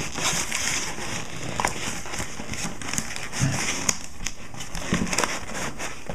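Newspaper crinkling and rustling in irregular small crackles as it is handled and pressed into a shipping box as packing.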